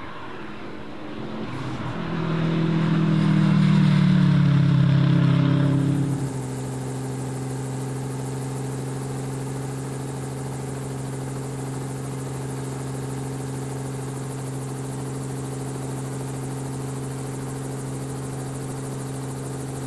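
Subaru Impreza rally car's flat-four engine under hard acceleration, swelling in loudness as the car drives past at speed, then cut off sharply about six seconds in. After that a steady, unchanging whirring hum of a drone's motors and propellers.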